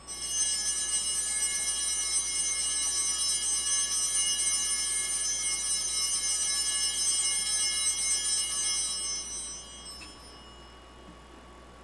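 Altar bells rung continuously: a bright cluster of high ringing tones that starts suddenly, holds at an even level, and dies away about ten seconds in. They mark the elevation of the consecrated host at Mass.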